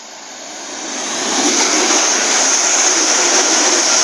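East Midlands Railway Class 360 electric multiple unit passing close at speed. The rush of wheel and air noise builds over the first second and a half, then holds steady and loud as the carriages go by.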